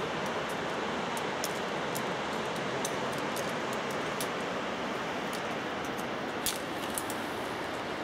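Steady rushing of a mountain river in the gorge below, with a few faint, sharp clicks, one a little louder about six and a half seconds in.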